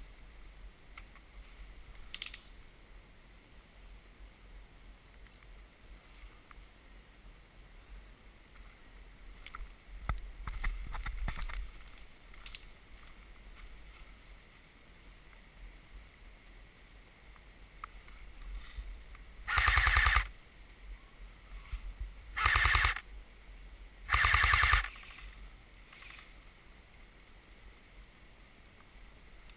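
Three short full-auto bursts from a CYMA AK-47 airsoft electric gun (AEG), each under a second long and a second or two apart, after a long stretch of quiet. A quieter scuffling sound comes about ten seconds in.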